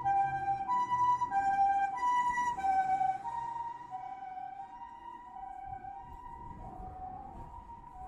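Japanese ambulance two-tone siren, alternating evenly between a high and a low pitch. It is loud for about the first three seconds, then grows fainter, and its pitch drops slightly near the end as it pulls away.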